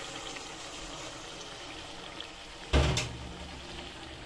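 A steady watery hiss from a pot of chana dal and gourd curry on the stove. About three seconds in there is a single loud, low thump.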